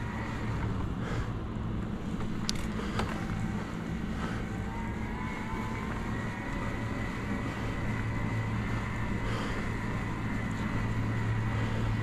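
Electric bike riding along a paved road: a steady thin motor whine over tyre and wind noise, with a second fainter whine that rises slowly in pitch from about four seconds in.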